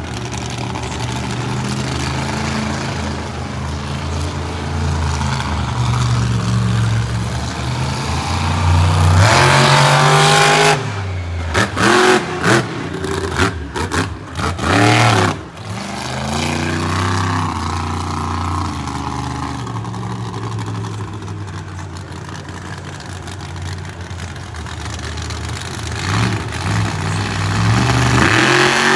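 Monster truck engine revving hard, building to a peak about ten seconds in, then a run of sharp throttle blips cutting in and out. It settles to a steadier run and rises again near the end.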